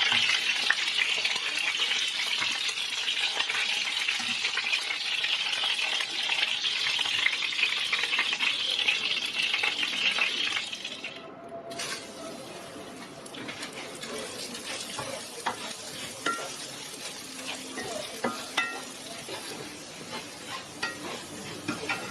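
Food sizzling as it fries in hot oil in a pan, loud for about ten seconds. After a short break it goes on quieter, with scattered light clicks and taps as it is stirred.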